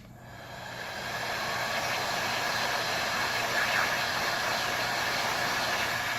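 Electric heat gun blowing hot air, a steady fan-driven rush with a faint whine that builds up over the first second or two and cuts off at the end. It is softening the adhesive holding the phone's earpiece flex cable to the screen.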